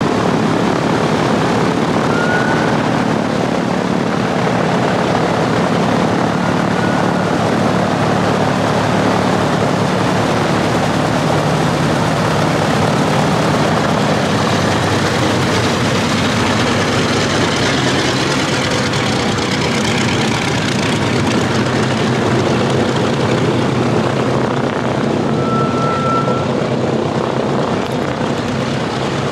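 Boeing B-29 Superfortress taxiing on its two inboard radial engines, its outboard engines shut down, giving a steady loud propeller and engine drone. Brief high-pitched brake whines cut through about two seconds in and again around seven seconds, with a longer one near the end, as the brakes are used to steer while taxiing.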